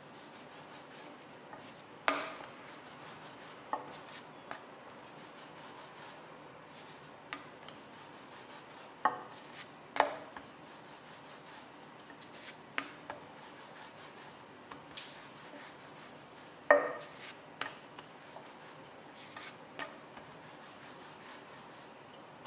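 A rolling pin rolling back and forth over dough on a silicone mat: a repeated rubbing, with several louder short knocks scattered through.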